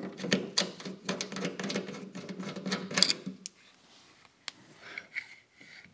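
Hand ratchet clicking rapidly as the mounting bolts of a band saw's blade shear are backed out. The clicking stops about three seconds in, followed by a few light metal clicks.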